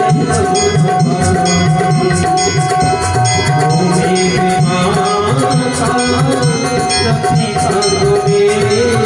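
Music: sustained held tones over a steady, regular drum rhythm.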